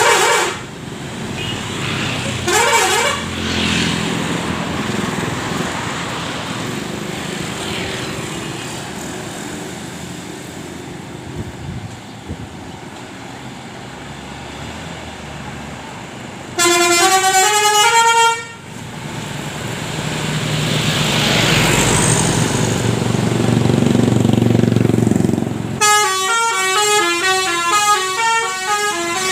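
Indonesian 'telolet basuri' multi-tone bus horn playing a stepped melody of quick successive notes: a short phrase about halfway through and a longer one over the last few seconds, with brief horn notes near the start. In between, the bus's engine and road noise run steadily, with a rising surge a few seconds before the last phrase.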